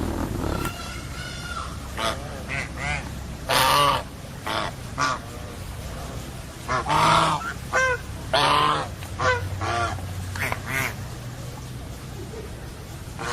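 A series of bird calls, a dozen or so short and longer ones, the loudest about four, seven and eight and a half seconds in.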